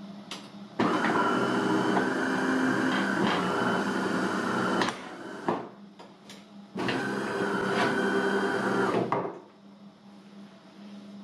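DeLonghi Magnifica ESAM 3000.B bean-to-cup coffee machine running its internal motor in two loud bursts, the first about four seconds long and the second about two and a half, with a few clicks between them.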